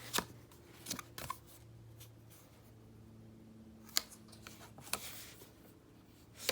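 Trading cards being handled, with a handful of short, sharp clicks and snaps of card stock scattered irregularly, over a low steady hum.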